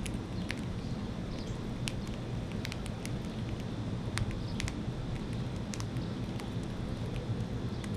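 Seeds or nut shells being cracked and nibbled at a feeder: about fifteen sharp, irregular clicks and cracks over a steady low background rumble.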